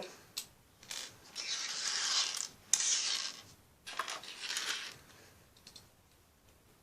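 Rustling and scraping of objects being handled, in a couple of noisy bursts a second or two long with a few sharp clicks, then quieter near the end.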